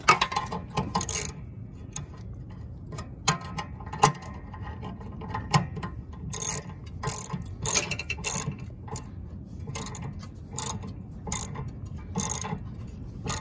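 Socket ratchet wrench clicking in repeated strokes as it tightens the nut on a mower-deck pulley. The strokes come in short clusters of clicks, few at first, then regularly about every two-thirds of a second in the second half.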